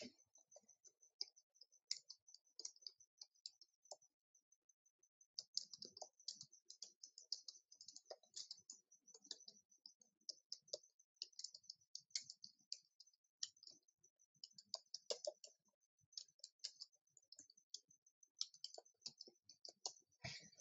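Faint computer keyboard typing in quick runs of keystrokes, pausing briefly about four seconds in, with a louder single click near the end.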